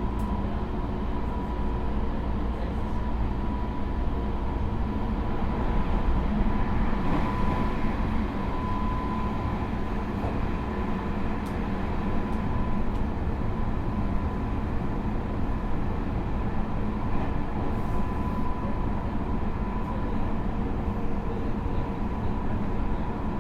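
Meitetsu 3700 series electric train heard from inside the car while running: a steady rumble of wheels on rail with a thin, constant high whine from its Toyo Denki GTO-VVVF inverter, unusually loud in the cabin for this type, which the recordist takes for an abnormal noise from the inverter equipment.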